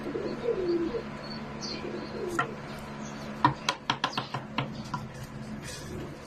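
Pigeon cooing, a few low rolling coos in the first half. About three and a half seconds in comes a quick run of about eight sharp clicks within a second.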